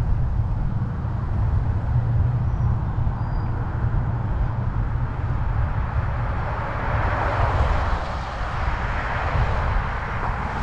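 Wind rumbling on a bicycle-mounted camera's microphone while riding along a road. A passing car's road noise swells about two-thirds of the way in, then fades.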